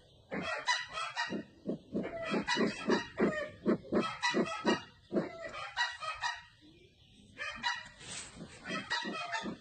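Calls of the Sumatran 'merah mata' bird, the sempidan pheasant: rapid runs of short, harsh pitched notes, several a second, in bursts, with a brief pause about two-thirds of the way through.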